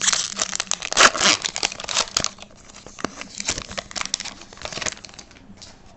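Hockey trading cards and their foil pack wrapper being handled: a quick run of crinkling and card-sliding rustles, busiest in the first couple of seconds and tailing off near the end.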